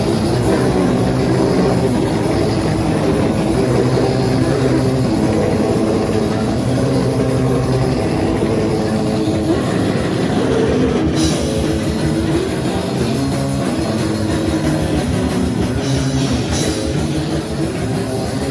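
Live rock band playing loud and dense: drum kit and guitar in a noisy, heavy punk style.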